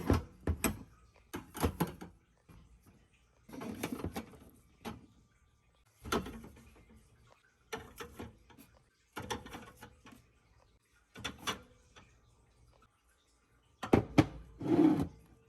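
Grocery bottles, jars and packets being handled and set down while being sorted onto shelves: separate knocks, clicks and short scraping or rustling sounds every second or two, with quiet gaps between and the loudest clatter near the end.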